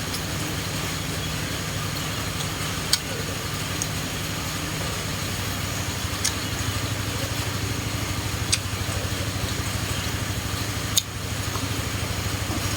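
A motor or engine running steadily with a low hum and a fast even pulse, with a few sharp clicks over it, about one every two to three seconds.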